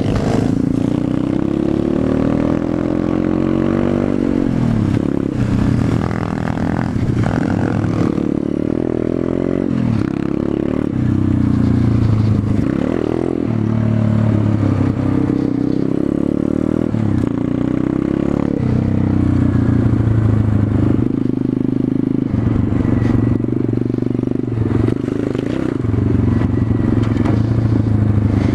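125cc pit bike engine running under the rider, revving up and easing off several times as the bike rides over grass and pavement.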